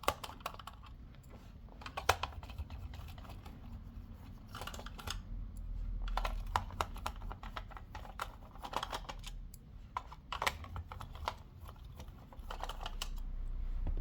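Irregular plastic clicks and taps as a SALUS wireless thermostat's casing is pried open and its parts handled.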